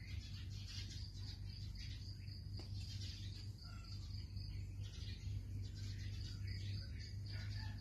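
Outdoor ambience of birds chirping and a steady high insect buzz over a low, constant hum.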